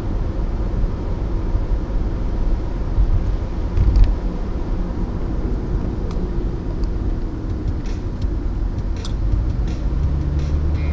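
Steady road rumble and tyre noise of a moving car on wet pavement, heard from inside the cabin through a dash camera's microphone, with a thump about four seconds in and a few light clicks later. Music comes in near the end.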